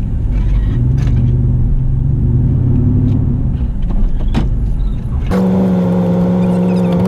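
Pickup truck driving slowly on a rough dirt road: low engine and road rumble with a couple of knocks. About five seconds in, a louder, steady engine drone suddenly sets in.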